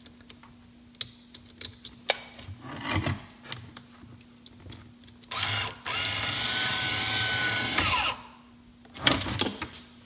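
BMW E30 power antenna's small electric motor, run off 9-volt batteries, runs for about three seconds, its gears drawing the new mast in. It makes a steady whine that winds down as it stops. Before it there are light clicks from handling the wires and connector.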